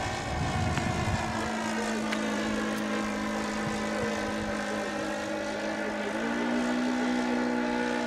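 Engine and propeller of a Seagull Models Bücker Jungmeister radio-controlled model biplane, flying overhead with a steady buzzing drone. Its pitch steps up a little about six seconds in.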